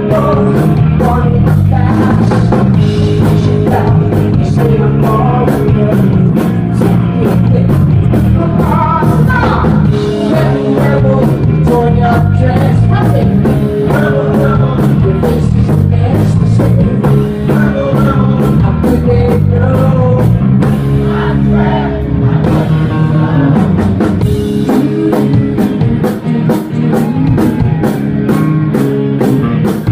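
Live rock band playing loud, with a woman singing lead over a steady drumbeat and electric guitar.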